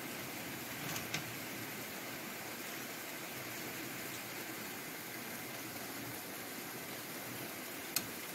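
Steady rain falling on trees and a concrete path: an even hiss, with two sharp ticks, one about a second in and one near the end.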